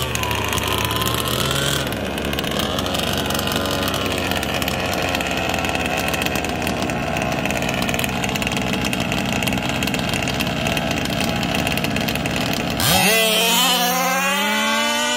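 Gas two-stroke engines of 1/5-scale RC cars idling steadily on the start line, with a brief rev about a second in. Near the end they rev hard with a rising pitch as the cars launch down the drag strip.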